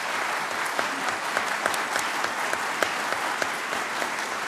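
Audience applause: many people clapping in a dense, steady patter.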